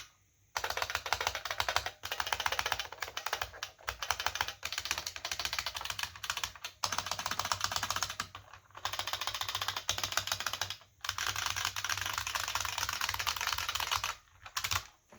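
Fast typing on an IBM 5155 keyboard's capacitive buckling-spring key switches: a dense, continuous run of sharp key clicks. It starts about half a second in, breaks off briefly a few times, and stops just before the end.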